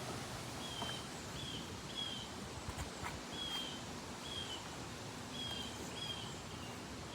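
A bird chirping over and over, short high chirps that drop slightly in pitch, about two a second, over a steady outdoor background hiss.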